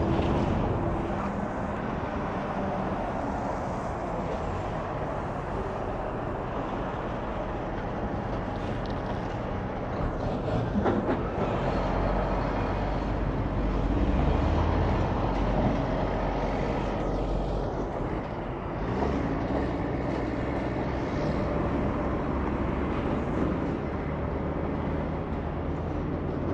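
Highway traffic: trucks and other vehicles driving past, a steady mix of engine and road noise that swells a little as vehicles go by.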